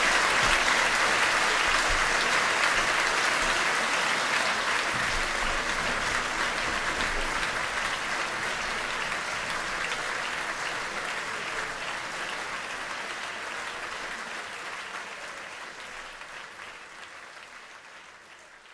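Concert audience applauding, a dense steady clapping that gradually fades away.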